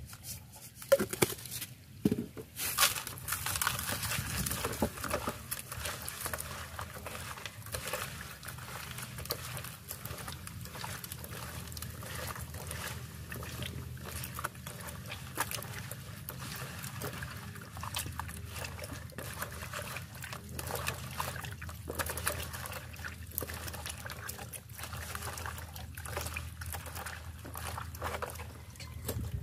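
Raw pig offal being washed by hand in a basin: water sloshing and trickling as it is rubbed and turned. Small clicks run throughout, with a few louder knocks in the first few seconds.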